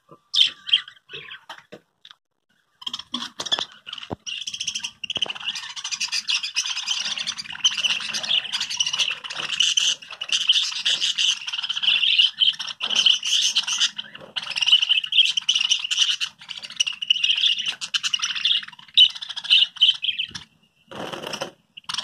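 A caged flock of budgerigars chattering and warbling in a dense, continuous chorus, after a brief lull about two seconds in.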